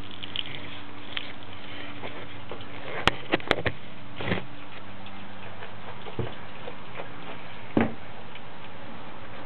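Gasoline trickling and dripping from the petcock of a 4 HP engine's base fuel tank onto a paper mesh strainer in a funnel, draining out gritty sediment. Scattered ticks, with a few sharp clicks and knocks about three seconds in and another near eight seconds in.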